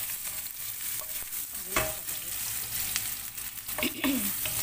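Chopped onion sizzling in hot oil in a pan, with a steady hiss. A wooden spoon stirs it, scraping against the pan about two seconds in and again near the end.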